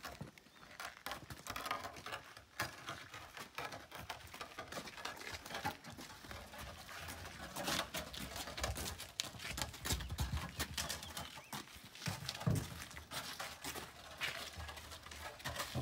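Iron-tired wooden wheel rolling and bumping over concrete, with shuffling footsteps: a steady run of irregular knocks and clatter, with a few heavier thumps in the second half.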